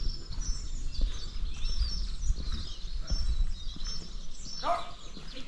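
Small songbirds chirping and twittering on and off over a low outdoor rumble, with one louder call sweeping down in pitch near the end.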